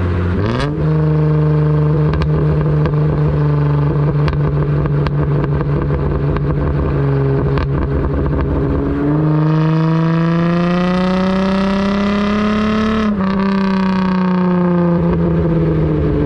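Car engine running under way. Its pitch steps up about half a second in and holds steady, then climbs steadily from about nine seconds. It drops sharply about thirteen seconds in and then slowly falls.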